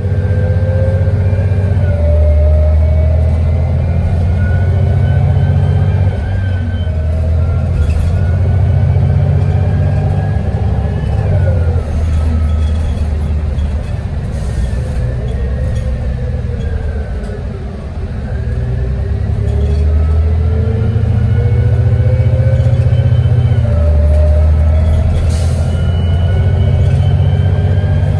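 City transit bus running on the road: a steady deep engine rumble under a drivetrain whine that glides up and down as the bus speeds up and slows.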